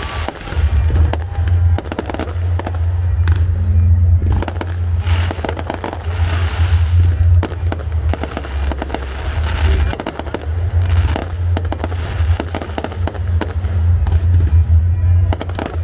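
Aerial fireworks bursting in quick succession, with overlapping booms, sharp cracks and crackling throughout.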